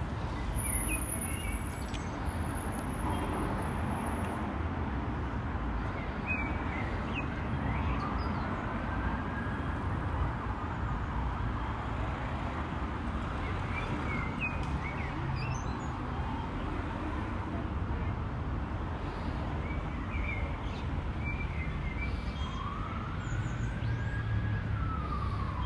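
Steady city street traffic noise, with an emergency vehicle siren wailing up and down in pitch twice, once about a third of the way in and again near the end. Short bird chirps come and go over it.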